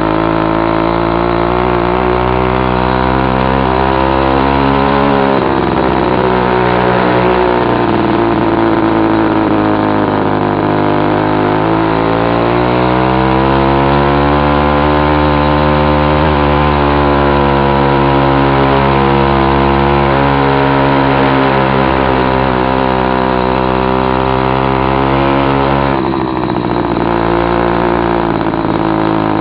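Two-stroke 'China Girl' bicycle kit engine on a motorized bicycle, running loud with its muffler cap removed as it pulls up a steep climb. Its pitch sags and rises again several times as the load changes, with a brief dip near the end.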